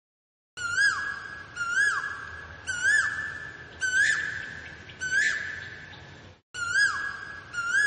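Asian koel calling: a series of about seven notes roughly a second apart, each a quick rise and fall in pitch. The calls start about half a second in, with a short break just before the last two.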